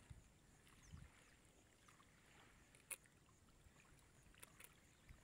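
Near silence, with a few faint clicks and soft taps from hands working a hook out of a catfish's mouth.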